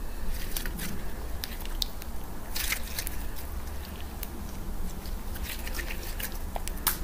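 Homemade slime being stretched, folded and squeezed by hand, giving off irregular small wet clicks and crackles.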